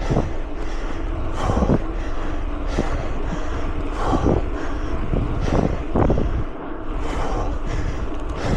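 Wind buffeting the microphone of a camera riding on a moving mountain bike, a steady low rumble, broken by irregular knocks and rattles as the bike rolls over rough ground.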